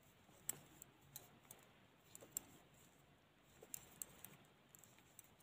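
Faint, irregular clicking and tapping of double-pointed knitting needles from a five-needle set as stitches are knitted.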